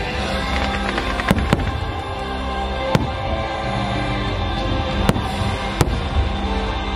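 Aerial fireworks bursting with about five sharp bangs, two close together in the first couple of seconds and the rest spread out, over the show's soundtrack music playing steadily throughout.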